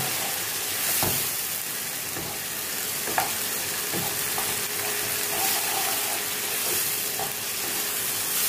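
Chopped tomatoes and onions sizzling in oil in a nonstick kadhai, sautéed for the tomato-onion base while a spatula stirs and scrapes through them. The sizzle is a steady hiss, with a few sharp knocks of the spatula against the pan.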